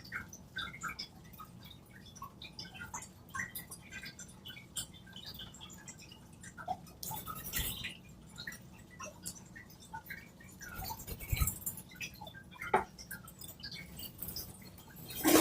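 Cockatiels nibbling and chewing at a toy with their beaks: a scattered run of faint small clicks and ticks.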